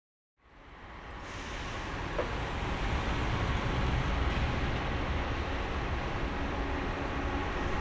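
Airbus A321neo's Pratt & Whitney PW1100G geared turbofan engines on approach: a steady jet rush with a deep rumble, swelling up over the first few seconds, then holding steady.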